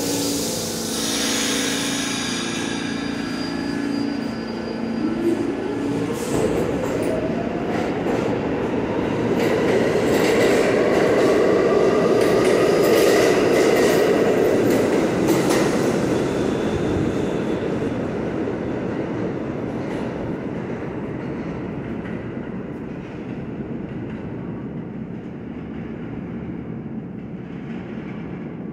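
Subway train pulling out of the station. About five seconds in, its motors begin a whine that rises in pitch as it speeds up, then the cars rumble and clatter past, loudest around the middle, and the sound fades away down the tunnel.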